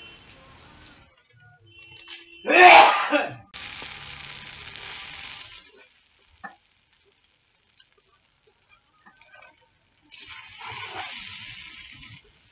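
Maggi noodles with egg and vegetables frying in a wok over a wood fire, sizzling in stretches that start and stop sharply, with a spatula stirring in the pan. A short, loud burst about two and a half seconds in is the loudest sound, and there is a quiet gap after the middle.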